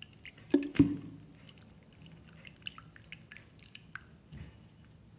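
A hand squelching and stirring wet flour and cornflour batter in a glass bowl as water is worked in, with small scattered wet clicks and drips. Two sharp knocks about a quarter second apart come a little under a second in.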